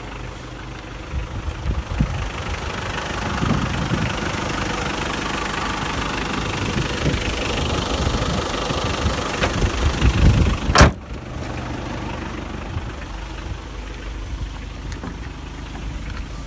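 Hyundai H1 van's engine idling under an open bonnet, with some uneven low thumps. About eleven seconds in the bonnet is slammed shut with one loud bang, and the engine sounds more muffled after it.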